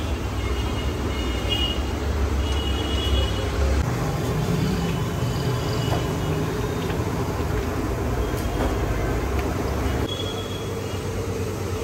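Steady street traffic noise with a low rumble, with short high tones coming and going.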